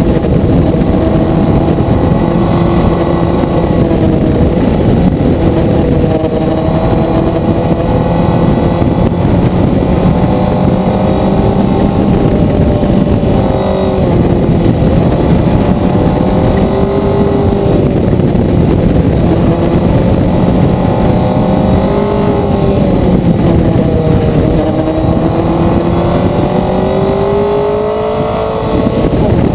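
Motorcycle engine heard from on board, its pitch repeatedly rising and falling with throttle and gear changes, over a constant rushing noise. A short drop in level near the end is followed by a steep climb in revs.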